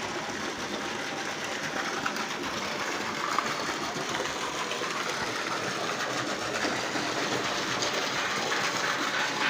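Small engine-driven water pump running steadily at a constant speed, pumping water.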